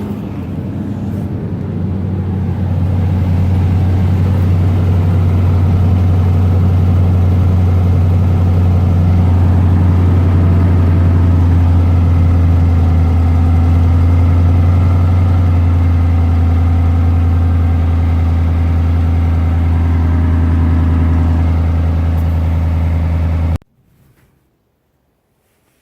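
Toyota Sequoia V8 engine and exhaust running steadily at idle, a little louder after the first couple of seconds. It cuts off suddenly near the end.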